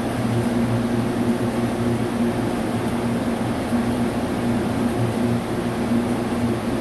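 Large CNC vertical lathe running with a big steel tunnel boring machine sleeve spinning on its table: a steady machine hum with a low drone.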